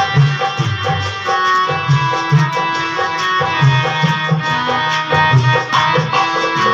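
Instrumental Hindu devotional bhajan music: a hand-drum rhythm under a sustained melody line, with no singing.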